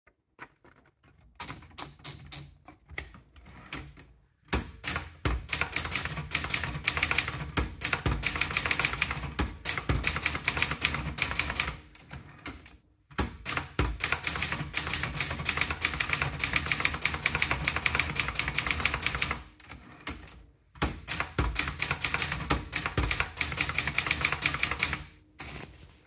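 Brother Deluxe 220 manual portable typewriter: a few scattered clicks at first, then fast typing in three long runs of keystrokes with short pauses between them.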